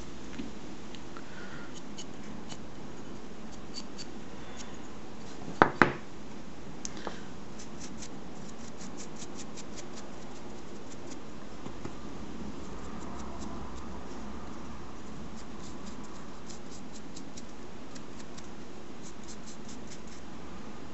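Paintbrush dry brushing a small textured model wall: light, quick scratchy ticks of the bristles flicking over the surface, coming in runs. Two sharp knocks a fraction of a second apart about six seconds in.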